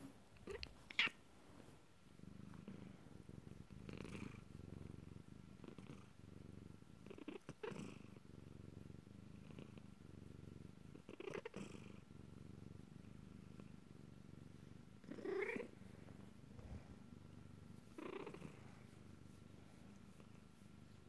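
Domestic cat purring steadily while being stroked, close to the microphone, with a brief louder sound every three or four seconds.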